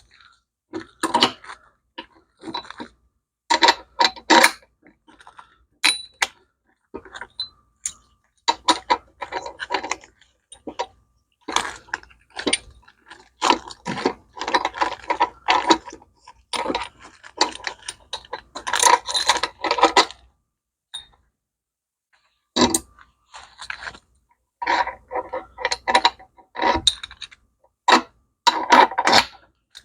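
Metal parts clinking and rattling in irregular bursts, with short silent gaps between them, as the small steel foot-control levers are handled.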